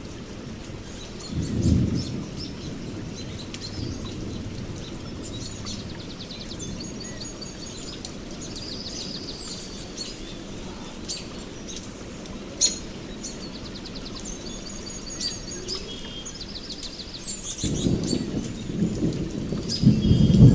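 Steady rain with thunder rumbling briefly near the start and swelling louder near the end, while birds chirp and trill.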